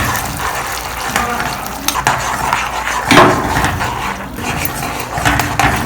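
A metal spoon scraping and clinking against a pan as sauces are stirred into fried garlic and chillies, with irregular clicks and a louder knock about three seconds in.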